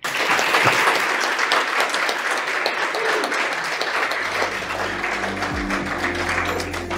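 Audience applause: many hands clapping, starting right away. About four seconds in, music with steady low notes comes in beneath the clapping.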